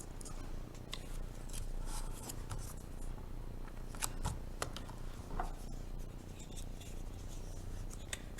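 Handling of paper-plate craft pieces on a table: scattered light clicks and soft paper rustles as a cut-out paper wing is worked on and glued down.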